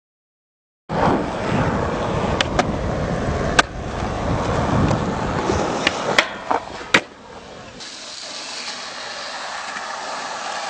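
Silent for about the first second, then skateboard wheels rolling on concrete, with several sharp clacks of the board popping and landing spread through the next six seconds.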